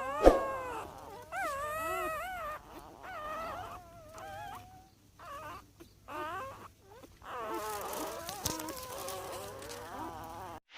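Newborn puppies, eyes not yet open, whimpering and squealing in a run of short, high, wavering cries with brief pauses between them. A sharp knock about a third of a second in is the loudest sound.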